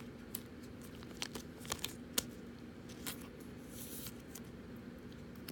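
Donruss football trading cards being handled and flipped through by hand: a scattering of light clicks from card edges and one brief sliding rustle a little before the end, over a faint steady hum.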